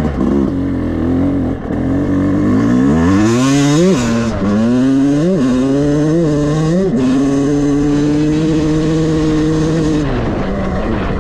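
2023 Yamaha YZ250 two-stroke single-cylinder engine pulling hard through the gears. Its pitch climbs, drops back at several quick upshifts about four to seven seconds in, holds high and steady, then falls away about ten seconds in. This is a full-throttle run on a new engine during break-in, done to bed it in.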